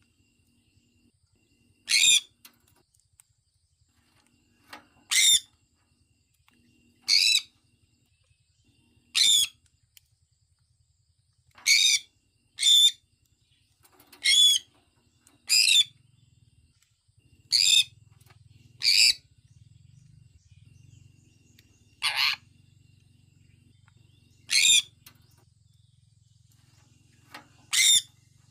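Sun conure giving short, high-pitched calls with a wavering pitch, about one every two seconds, sometimes two in quick succession, thirteen in all.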